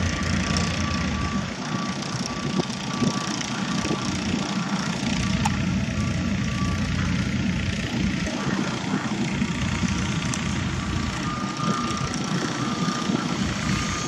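A construction vehicle's backup alarm beeping repeatedly over a steady rumble of machinery and wind. The beeping drops away in the middle and comes back at a slightly higher pitch near the end.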